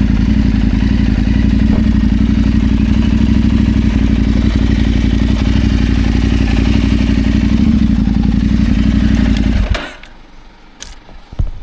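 KTM 890 Adventure's parallel-twin engine running steadily with road and wind noise, cutting off abruptly near the end, followed by a couple of faint clicks.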